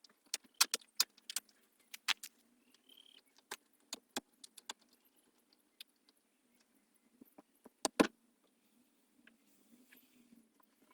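Irregular sharp clicks and clinks of hard objects being handled, clustered in the first few seconds, with one louder knock about eight seconds in.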